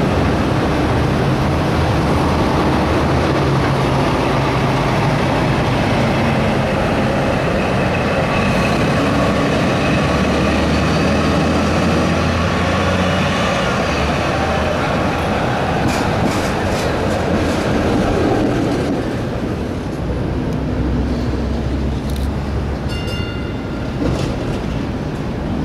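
A vintage PCC streetcar running along street track amid city traffic, with a run of sharp clicks partway through. The sound shifts about three-quarters of the way in, and a short high ringing tone comes near the end as a car rounds a curve.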